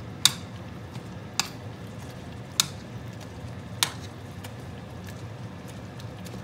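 Cooked grapes being mashed in a pan with a hand masher: four sharp clacks roughly a second apart as the masher strikes the pan, over a low steady hum.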